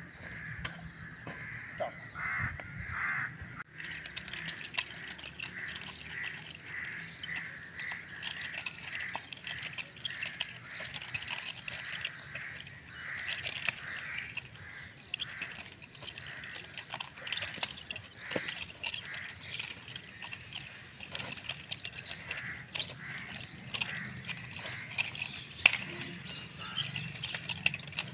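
Birds calling among the trees in a steady run of short repeated calls, with scattered sharp clicks throughout.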